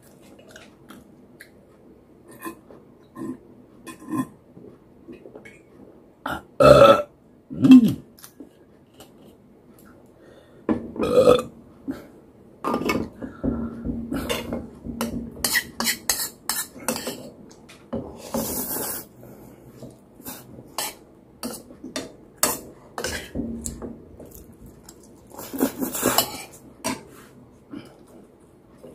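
Close-up eating sounds: spoon and fork clinking and scraping on ceramic plates and a bowl, with chewing and mouth noises. Two loud burps come close together about seven seconds in.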